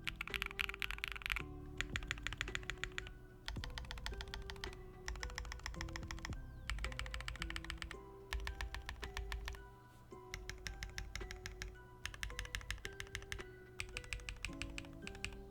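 Fast typing on a Neo80 mechanical keyboard with Keygeek Little Ghost linear switches, a POM plate and WS Orchid keycaps. The keystrokes come in dense runs broken by short pauses, over background music.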